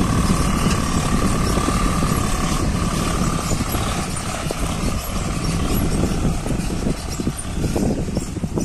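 Diesel tractor engine working steadily as it tows a heavily loaded trolley across a soft field. A steady high whine sits over it for the first few seconds and then fades out.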